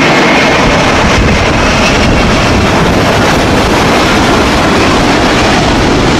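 Twin-engine widebody airliner's jet engines at takeoff thrust: a loud, steady roar with wind rumble on the microphone.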